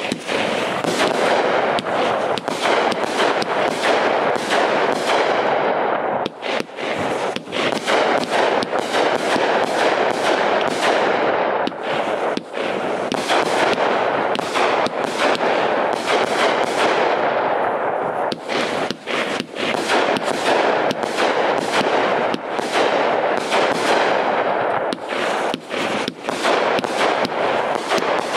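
Brothers Pyrotechnics 49-shot 500-gram fireworks cake firing, shot after shot in rapid, unbroken succession with sharp reports of launches and bursts overlapping. It starts suddenly and keeps up a dense, loud barrage.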